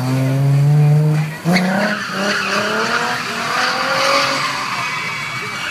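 Drift car's engine revving hard and climbing in pitch, cutting off sharply about a second and a half in and then revving again. After that its rear tyres squeal and skid in a long, sustained slide.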